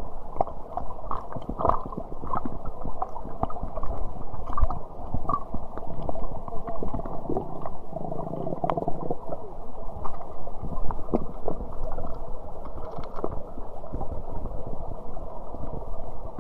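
Muffled, rumbling water with scattered knocks and gurgles, the sound dull and cut off above the low range.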